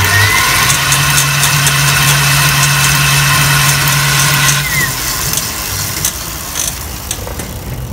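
Cyclone electric motor kit on a pedicab running, a steady whine that drives the chain to the rear axle, with scattered ticks. The whine cuts off suddenly about four and a half seconds in.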